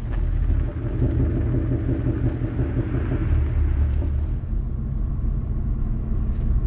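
Ford Mustang Boss 302 driving, heard from inside the cabin: a steady low rumble from the 5.0 L V8, the exhaust and the drivetrain, its engine note strongest in the first half.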